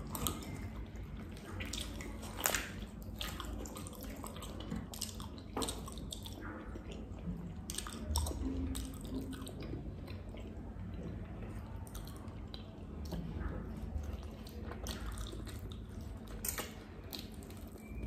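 Close-up eating sounds: wet chewing and lip-smacking as a person eats chicken with his hands, with irregular sharp clicks and smacks as the meat is torn apart.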